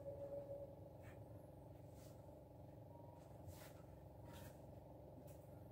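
Near silence: low, steady room hum with a few faint ticks.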